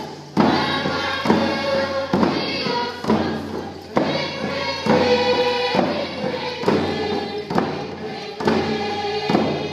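Voices singing a Northwest Coast First Nations dance song together, with a drum struck in a steady beat about once a second.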